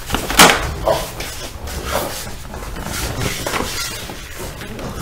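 A padded examination bed being pushed across a floor: a sharp knock about half a second in, then lighter knocks and rumbling as it moves.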